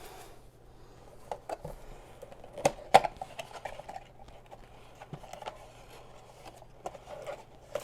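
Hands handling a trading card box and its packs: scattered light clicks, taps and rustles of cardboard and wrapper, the loudest a pair of sharp taps about three seconds in.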